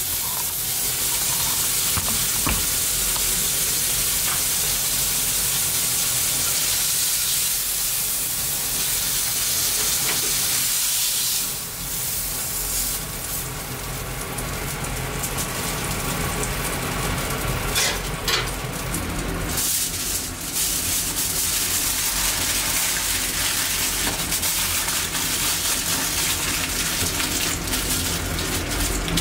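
Lean red meat sizzling steadily in a hot iron frying pan, with a few sharp clicks partway through.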